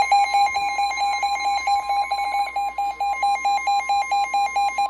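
Weather radio alert signal: a steady warning alarm tone near 1 kHz with a rapidly pulsing beep over it. The beeping stops at the very end while the steady tone goes on more quietly.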